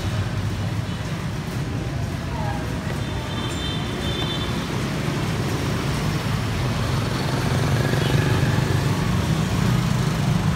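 Busy street traffic: motorbike and car engines in a steady low rumble, getting a little louder about seven seconds in.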